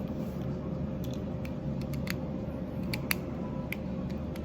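Small, sparse plastic clicks and taps as the two halves of a 2022 Honda CR-V key fob case are handled and snapped back together, over a steady low hum. A sharper snap comes right at the end.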